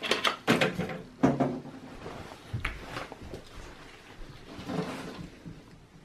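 Clicks and knocks of a SATA cable being unplugged and pulled free inside a steel desktop PC case, with several sharp clicks in the first second and a half and softer scattered knocks after.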